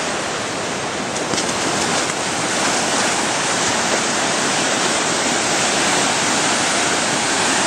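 Ocean surf breaking in the shallow shore break and washing up the sand: a steady, even wash of noise.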